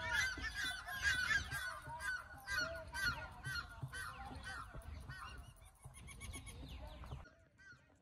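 Two red-naped ibises (Indian black ibises) squawking: a rapid run of loud, harsh calls, several a second, which grows fainter toward the end.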